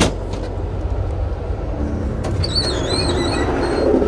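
Passenger train in motion heard from inside the car: a steady low rumble with a sharp click at the start. About two seconds in there is another click, then a wavering high squeal for about a second. Near the end the running noise grows louder.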